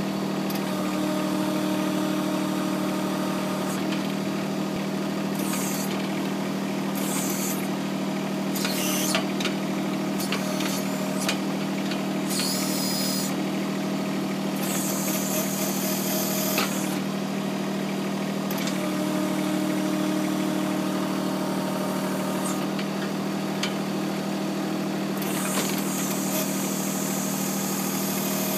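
John Deere 260 backhoe's diesel engine running at a steady idle. Several bursts of high hiss and a few clunks come and go over it as the boom controls are worked.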